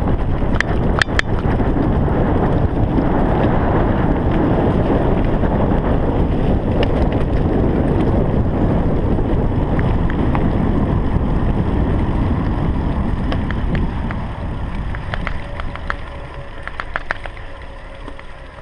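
Mountain bike riding fast down a dirt woodland trail: wind buffeting the camera's microphone over the rumble of the tyres, with scattered clicks and rattles. It quietens about fourteen seconds in as the bike slows, with a run of clicks near the end.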